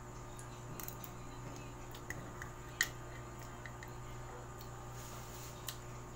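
Quiet eating and handling sounds of a spoon scooping ripe mango flesh from the skin, with a few small sharp clicks, the loudest one near the middle. A steady low hum runs underneath.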